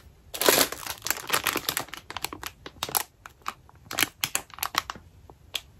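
Clear plastic wrapping crinkling in irregular bursts as a small bagged plush doll is handled.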